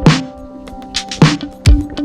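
Background music with a steady drum beat under sustained melodic tones.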